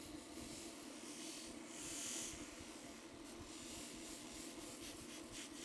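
Metal parts of an antique tap and die set being polished: faint, steady rubbing with a constant hum underneath.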